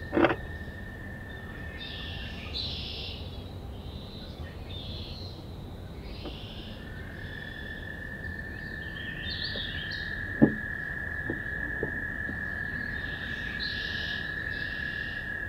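Muffled birdsong from outside a wooden wood duck nest box, over a steady high tone. Two sharp knocks inside the box, one right at the start and one about ten seconds in, from a wood duck hen moving against the wooden walls.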